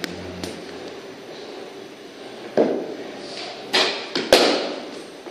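Cricket ball and bat impacts in a practice net: a few knocks and thuds, the loudest and sharpest crack about four seconds in, as the bat strikes the ball.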